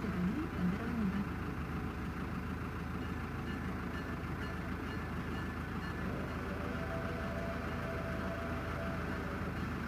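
Steady low mechanical rumble, like a vehicle running, with a faint steady tone over it in the latter half and a voice briefly at the very start.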